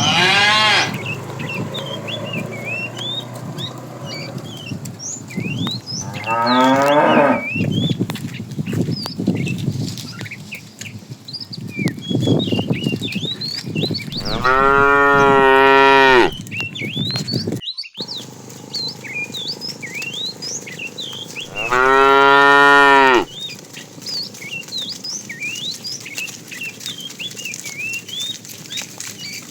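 Cattle mooing: four separate moos, the two later ones long and loud, about two seconds each, with short high chirps throughout.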